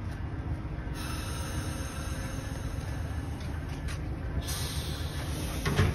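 Amtrak Vermonter passenger train standing at the platform: a steady low rumble, with a high hiss of air starting about a second in. A brief louder sound comes near the end.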